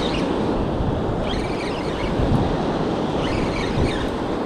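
Surf washing up the beach with wind buffeting the microphone; a brighter hiss swells and fades every second or two.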